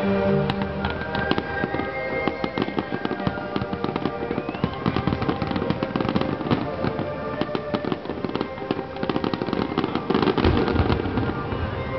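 Fireworks going off in rapid succession: dense crackling and popping from many small fireworks at once, busiest and loudest about ten seconds in. Music plays underneath.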